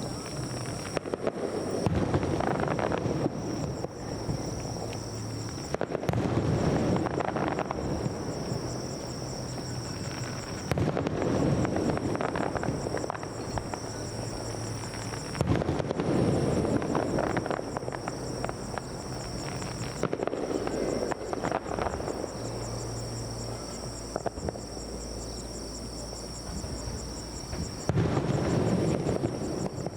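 Aerial fireworks shells bursting one after another every few seconds, each burst trailing off in crackle. A steady high insect trill runs underneath.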